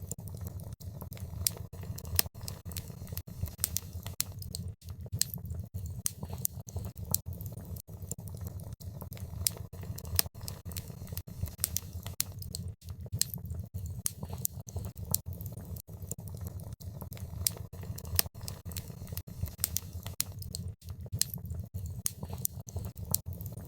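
Wood fire crackling in a fireplace: frequent irregular sharp pops and snaps over a steady low rumble of the flames.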